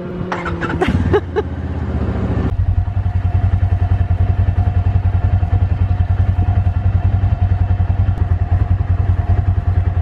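Side-by-side utility vehicle's engine running. After some clatter in the first two seconds or so, it settles into a steady idle with an even, rapid pulse.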